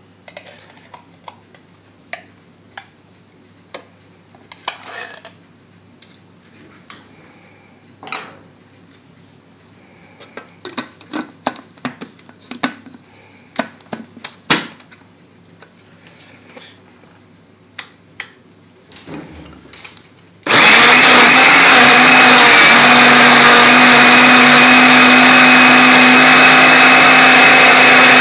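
Scattered clicks and knocks at a blender jug for about twenty seconds, then the countertop blender switches on abruptly and runs loudly and steadily, blending yogurt, sugar and sliced mango into a mango lassi.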